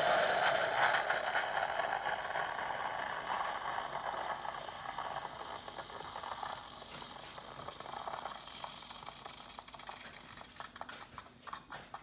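Bosch Tassimo pod machine dispensing frothed milk from a milk pod into a glass: a steady hiss of the pour that slowly fades. Near the end it turns to short irregular sputters as the milk cycle finishes.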